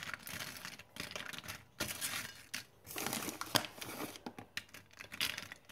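Plastic bag of grated cheddar crinkling and rustling in irregular bursts as handfuls of cheese are pulled out and scattered over tortilla chips.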